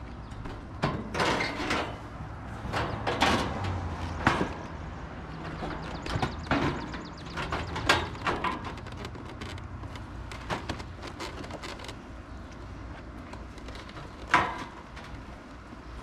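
Plastic and sheet-metal casing panels of a window air conditioner being handled and fitted back onto the unit: scattered clicks, knocks and scrapes, with one sharper knock near the end.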